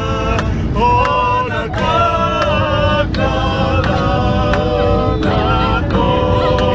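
A group of voices singing together unaccompanied, holding long notes in harmony, over the steady drone of the aircraft cabin.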